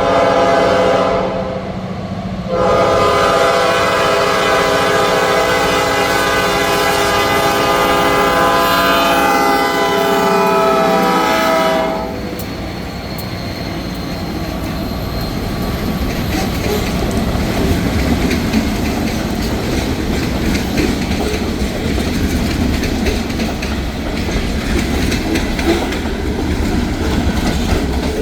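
Escanaba & Lake Superior freight locomotive's air horn: a short blast, then one long blast of about nine seconds whose pitch drops slightly near its end as the locomotive passes. Then the freight cars roll by with a steady clatter of wheels on the rails.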